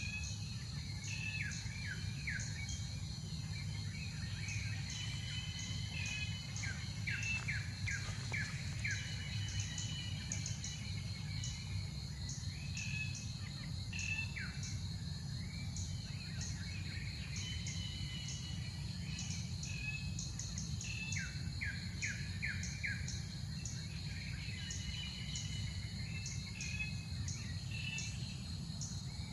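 Birds chirping in bouts of quick falling notes, over a steady, finely pulsing insect drone and a low rumble.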